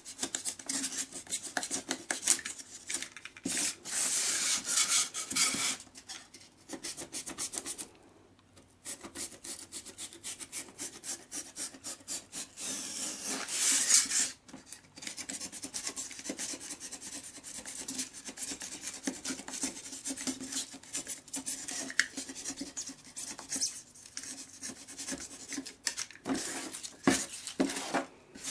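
Snap-off cutter knife drawn again and again through the glider's material, a long run of short scratchy cutting strokes with a brief pause about eight seconds in.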